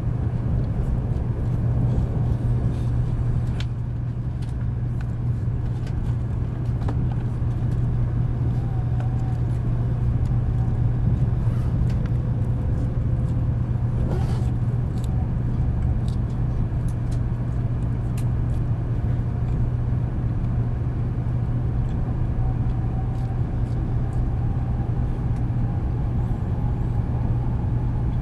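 Steady running noise inside the passenger cabin of a 700 series Shinkansen at speed: a low hum and rumble with a faint wavering whine over it, and a few faint clicks.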